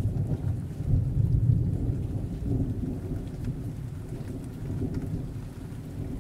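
Low rolling thunder rumbling and slowly fading, over a steady hiss of rain.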